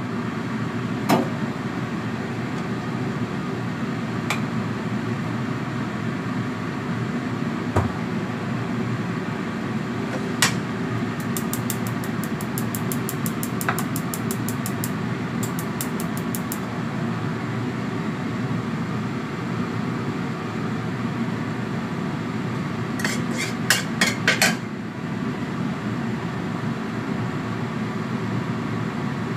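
Kitchen range hood extractor fan running steadily. A third of the way in, a gas hob's igniter ticks rapidly for a few seconds, and near the end a handful of loud sharp knocks sound.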